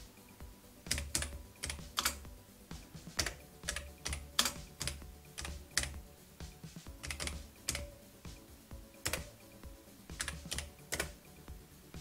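Typing on the Amstrad CPC 464's keyboard, now working as a USB keyboard: its keys click in irregular clusters of keystrokes with short pauses between.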